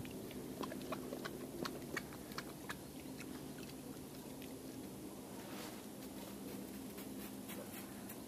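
Footsteps crunching on frost-covered ground and dry reeds: a run of sharp, irregular crunching clicks in the first few seconds, then quieter, over a faint steady low hum.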